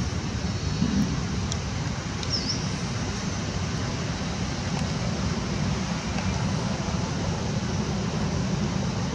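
Steady low rumbling outdoor background noise, with a couple of faint high chirps about two seconds in.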